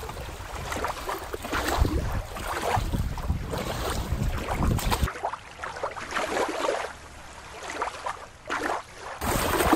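Wind rumbling on the microphone over water lapping at a rocky river shore. About five seconds in it cuts to a quieter, hushed background for about four seconds, then the shore wind returns.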